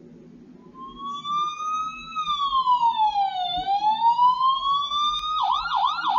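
Siren with a slow wail that rises, falls and rises again, then switches about five seconds in to a fast yelp of about three warbles a second.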